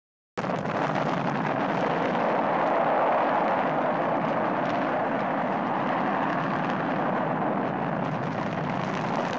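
Steady rushing noise, a soundtrack ambience, that starts abruptly a moment in after a brief dead silence and then holds even.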